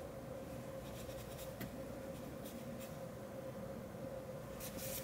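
Microfiber cloth wiping over a condenser microphone's body, faint rubbing strokes with a few short scrapes around a second and a half in and near the end, over a steady faint hum.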